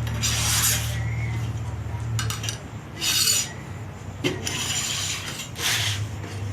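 A sheet of 26-gauge sheet metal being slid and dragged across a work surface, in about five short rasping scrapes, over a low steady hum that drops out partway through and returns near the end.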